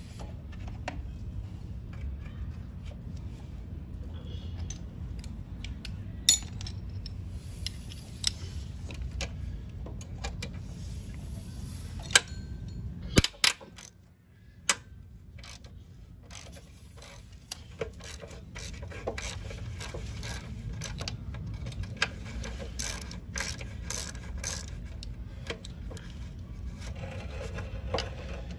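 Socket ratchet clicking as a nut is worked off a stud, with a few sharper metal clinks, over a steady low hum.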